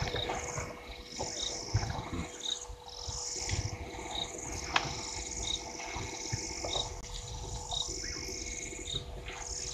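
Dusk chorus of frogs and insects at a waterhole: pulsing high trills with a short chirp repeating about once a second. Underneath are a steady faint hum and an uneven low rumble.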